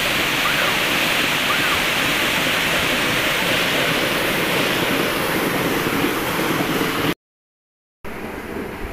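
Water gushing and churning steadily down a small channel, fed by drinking-supply water running to waste, with faint children's shouts over it. The sound cuts out for under a second near the end, then returns quieter.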